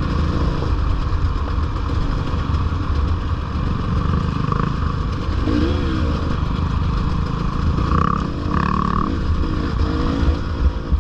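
Dirt bike engine running under the rider on a trail, with the intake noise from the air box right underneath audible.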